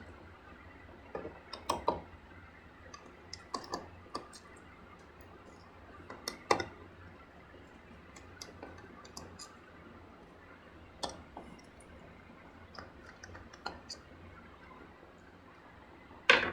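Scattered small clicks and light knocks of a screwdriver and tiny screws on a laptop's plastic back cover as the screws are taken out, with one louder knock near the end.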